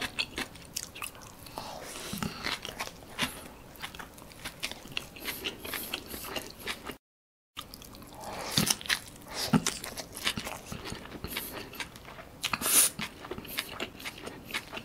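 Close-miked mouth sounds of a person biting and chewing a beef burger in a soft bun with onions: many small clicks of lips and food. There is a brief cut to silence a little before halfway, then a fresh, bigger bite.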